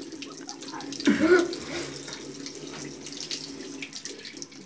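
Tap water running into a sink, with a short voice sound about a second in.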